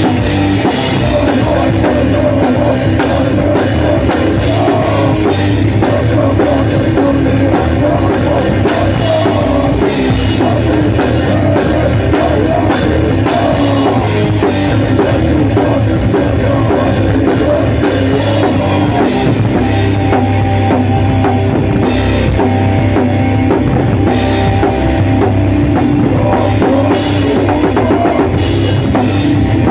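Heavy rock band playing loud and without pause, the drum kit up front in the mix.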